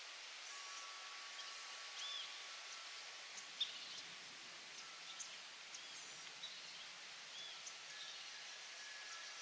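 Faint outdoor ambience: a steady hiss with scattered short bird chirps and a few soft clicks, one sharper click a little before four seconds in.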